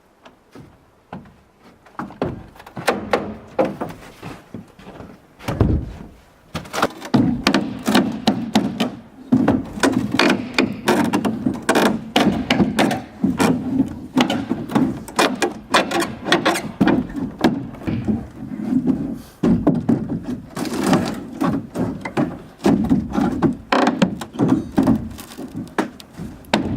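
Rapid, repeated knocks and thuds of wood being worked by hand: hammering and boards being pried loose and handled while a house is taken apart. The knocks start about two seconds in, pause briefly near six seconds, and keep going densely to the end.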